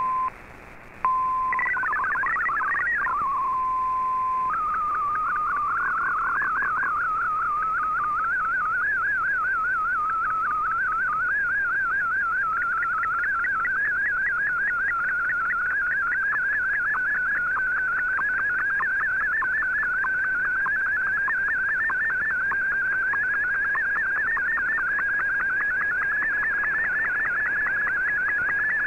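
MFSK64 digital picture transmission heard through a shortwave receiver. A short burst of warbling data and a steady 1 kHz tone with a brief dropout come first. Then, about four seconds in, comes one tone that jitters rapidly in pitch as it sends the image pixel by pixel, drifting slowly higher.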